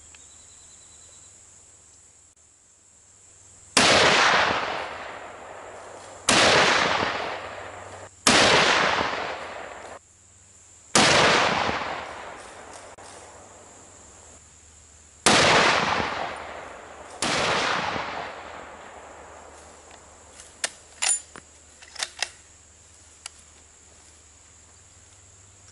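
Six shots from a Browning A-Bolt .300 Winchester Magnum bolt-action rifle, two to four seconds apart, each a sharp crack that rings out and dies away over a second or two. A few light clicks follow near the end.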